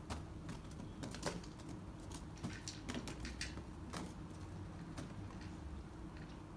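Scattered, irregular light taps and clicks as kittens pounce on and bat a small rubber balloon over ground strewn with dry leaves. A low steady hum runs underneath.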